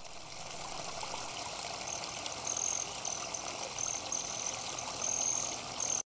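Outdoor ambience: a steady wash of noise, with a series of short, high, thin notes repeating from about two seconds in.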